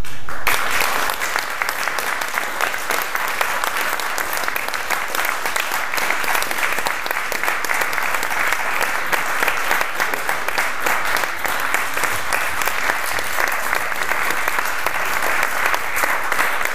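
A small audience applauding, breaking out sharply about half a second in and then going on steadily as dense, even clapping.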